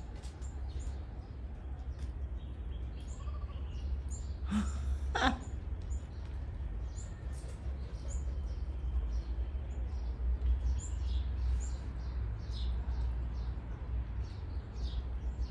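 Birds calling: many short, high chirps throughout, with two louder, harsher calls about four and a half and five seconds in, over a steady low rumble.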